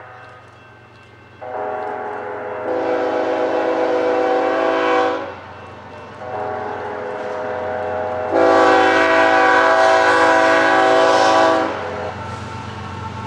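Freight locomotive air horn sounding for a grade crossing, several tones at once. It gives a long blast of about four seconds, then a longer one of about five seconds that grows louder partway through, and starts another near the end.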